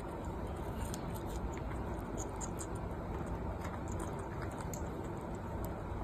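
Parrots nibbling at a cherry with their beaks: faint, irregular small clicks and crunches over a steady low room noise.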